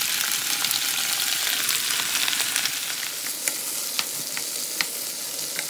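Chopped peppers, onion and pineapple sizzling in hot oil in a non-stick pan, a steady frying hiss. In the second half a wooden spoon stirring them gives a few light clicks against the pan.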